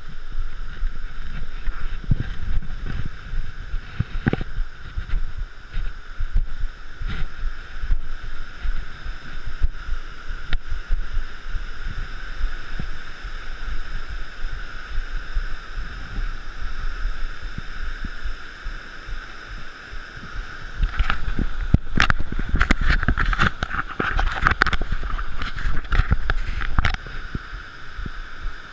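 Wind rumbling on the microphone with scattered knocks and rattles, as on a mountain bike ride over a rough trail; the knocks come thick and fast from about 21 to 27 seconds in.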